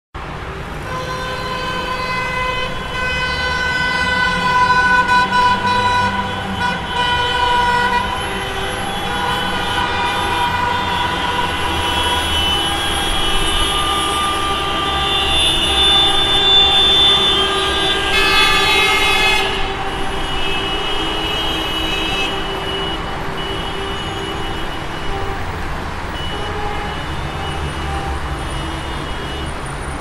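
Traffic jam: several car horns honking, many held for a second or more and overlapping, over the low rumble of engines. The horns are loudest a few seconds in and again just past the middle.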